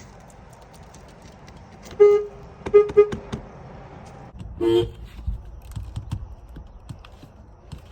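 Car horns honking: one short honk about two seconds in, two quick toots just after, then a longer two-note honk a second and a half later.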